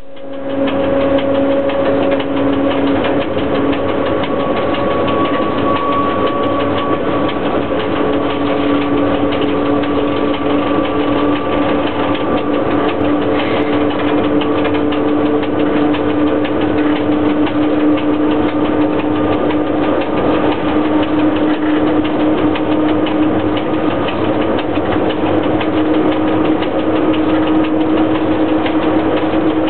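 Running noise inside the cab of a ChS4T electric locomotive hauling a passenger train under way: a steady, loud mechanical noise with a hum whose pitch rises slowly and evenly.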